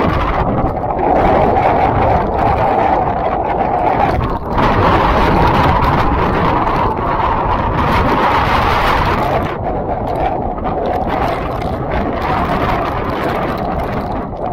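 Hurricane Ian's wind and driving rain buffeting the microphone in a steady roar of gusts; the gusts strengthen about four and a half seconds in and ease off near ten seconds.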